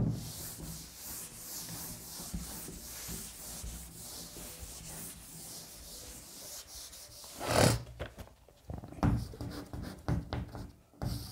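Continuous rubbing and scratching on a writing surface, with a louder swish about seven and a half seconds in and then short, broken scratching strokes.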